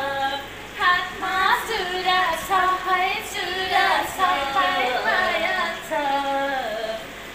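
A woman singing a melody in a high voice, with held notes that slide up and down between short breaths.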